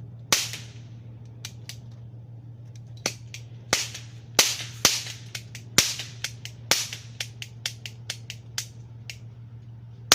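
Toy cap gun firing over and over: a string of sharp pops at irregular intervals, some loud and many fainter, with a steady low hum underneath.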